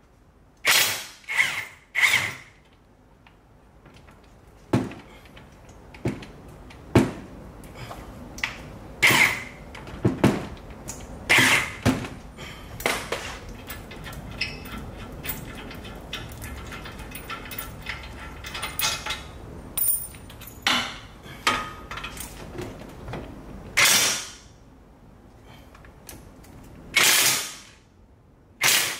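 Tools at work on the front brake caliper bracket bolts: a string of short mechanical bursts, each under a second, with metallic clicks and clanks in between.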